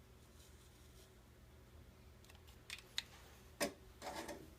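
Quiet handling sounds of cloth hockey tape being wrapped onto the knob of a hockey stick: a few sharp clicks and taps in the second half, the loudest about three and a half seconds in, then a short rasp near the end.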